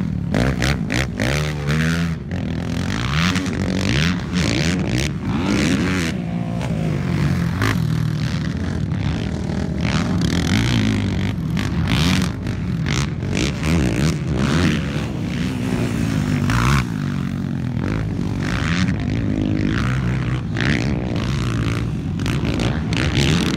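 Several racing ATV engines revving, their pitch rising and falling over and over as the quads accelerate and shift around a dirt motocross track.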